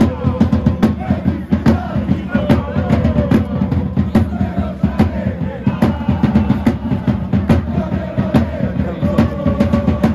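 Football ultras chanting in unison in the stands, with bass drums beating steadily through the song.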